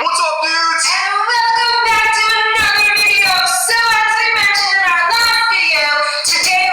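A high voice singing long held notes, with the pitch sliding between them.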